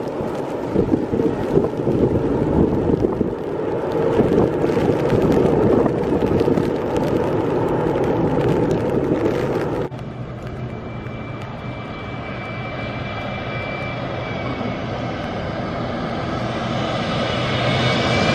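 Rain pattering on an umbrella over the distant roar of a jet airliner landing on a wet runway. About ten seconds in this cuts to a twin-engine jet airliner on low final approach, its engine whine and roar growing louder as it nears overhead.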